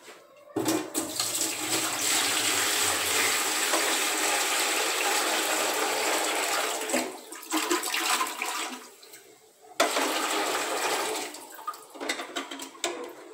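Dirty water gushing out of a SunSun HW-403A canister filter's housing as it is tipped over a sink, emptying the sludgy water left after the inside was wiped out by hand. A long pour of about six seconds breaks into splashes, then there is a second shorter pour about ten seconds in.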